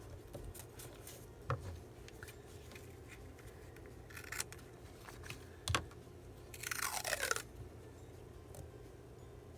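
Paper crafting at a table: washi tape and paper being handled. There are light rustles and taps, a sharper tap about six seconds in, and a scratchy rasp lasting under a second shortly after.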